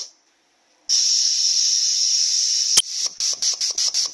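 Compressed air hissing through a 4L60E transmission shift solenoid on a bench test rig. A steady hiss runs for about two seconds and ends in one sharp click, then the air hisses in about six quick on-off pulses before stopping.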